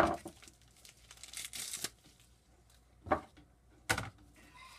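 A mail package being cut and torn open by hand, crinkling and tearing, with three sharp clacks: one at the start, two more about three and four seconds in.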